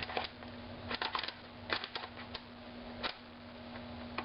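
Scattered sharp plastic clicks, about half a dozen at irregular spacing, from a plastic twisty puzzle being handled and turned. A faint steady hum runs underneath.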